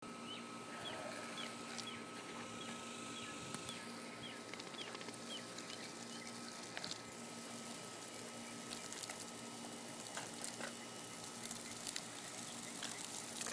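Water from a lawn sprinkler pattering on grass as a steady hiss, with a small bird chirping repeatedly, about twice a second, through the first few seconds, and a few faint clicks.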